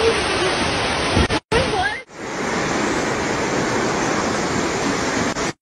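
Steady rushing noise of torrential rain and floodwater pouring through the streets, broken by brief gaps where the footage cuts.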